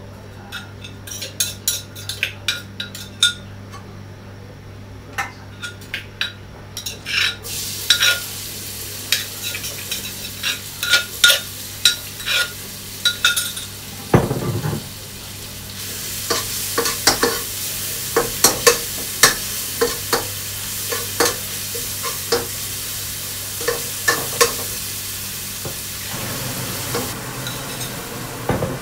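A utensil taps and scrapes pounded chilli-garlic paste out of a mortar into a hot oiled pan. About seven seconds in, the paste sizzles in the oil, with clicks of stirring against the pan and one loud thump about halfway through.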